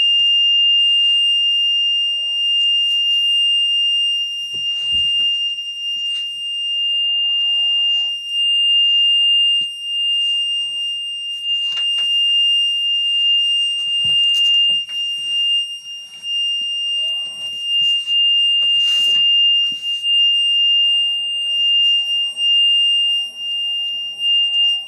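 Fire truck cab's warning buzzer sounding one steady, high-pitched tone without a break, with a few faint clicks and knocks from the controls underneath.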